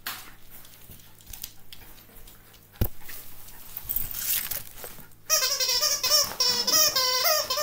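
Rustling with a single sharp knock, then about five seconds in a loud, high-pitched wavering whining cry starts and goes on in repeated pulses.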